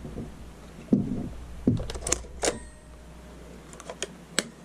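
Several sharp plastic clicks and knocks from handling a mostly polymer airsoft rifle, the Lancer Tactical Interceptor SPR, as its dust cover is flipped.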